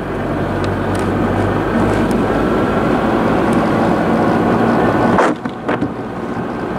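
Car driving on a wet road, heard from inside the cabin: steady road and tyre noise over a low engine hum. The noise dips sharply for a moment about five seconds in, then comes back.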